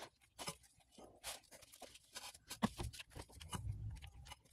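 Faint scattered clicks, taps and rustles of gloved hands working a tow strap around a CV axle's inner joint, tightening it.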